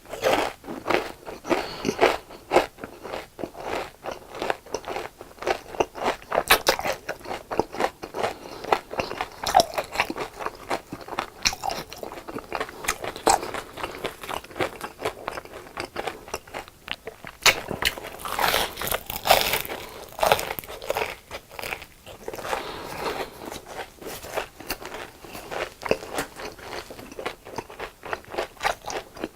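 Close-miked biting, crunching and chewing of crispy deep-fried food, a dense run of rapid crackles with louder crunchy bites around two-thirds of the way through.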